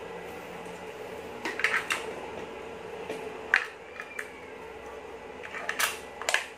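Several sharp clicks and light knocks, about six in all and coming in small clusters, from hands handling the equipment, over a steady low hum.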